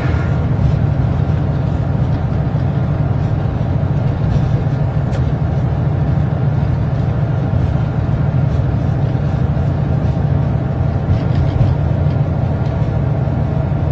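Steady low rumble of a train heard from inside the locomotive cab, with a few faint clicks.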